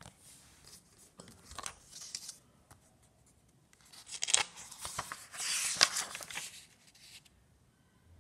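A diary's cover being opened and its paper pages turned by hand: rustling of paper with sharp crackles, in two bouts, the louder one starting about four seconds in.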